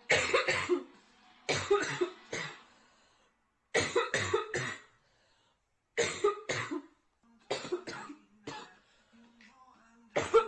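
A girl coughing nearly uncontrollably from a severe chest cold: about six short runs of two to four coughs each, coming one after another with only brief pauses between.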